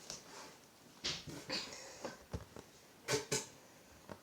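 Cardboard box being handled and opened: a handful of short scrapes and rustles, the loudest pair about three seconds in.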